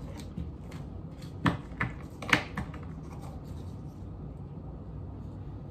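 Small handling noises: light scratching and rubbing, with a few sharp taps and clicks clustered a second or two in, as gingerbread cookie pieces and an icing piping bag are handled on a table.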